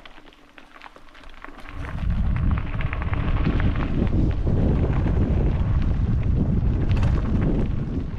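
Wind noise on an action-camera microphone that surges about two seconds in as the rider picks up speed down the trail, mixed with clicks and rattles of the bike and tyres over the ground.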